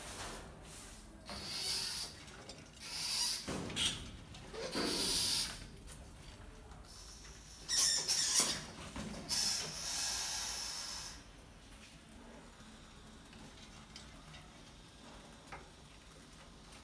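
Mice squeaking and scrabbling, in a series of loud bursts over the first eleven seconds, the loudest about eight seconds in. After that it falls to a faint steady hiss.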